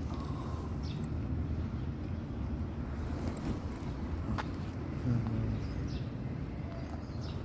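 Steady low outdoor rumble, with a single faint click about four and a half seconds in.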